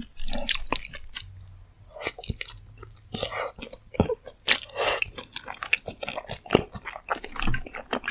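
Close-miked mouth sounds of someone eating rosé jjimdak: wet, sticky chewing with irregular smacks and clicks.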